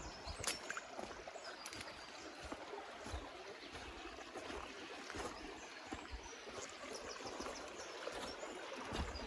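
Water running in a stream, a steady trickling rush, with a few sharp clicks near the start.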